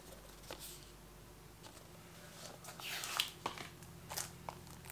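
Faint handling noise of a cardboard slipcover and a shrink-wrapped Blu-ray case: light clicks and taps, with a short crinkling rustle about three seconds in.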